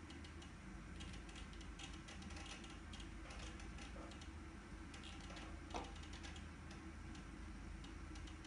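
Faint, irregular clicking of a computer keyboard being typed on, several clicks a second, over a steady low hum.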